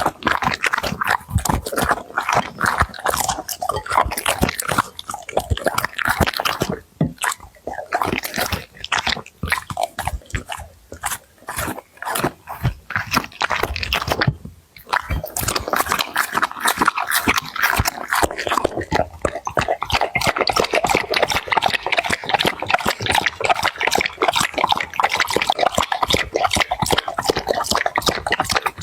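Pets crunching and chewing food: a dense run of quick, crisp bites and chews, with a brief break about halfway through.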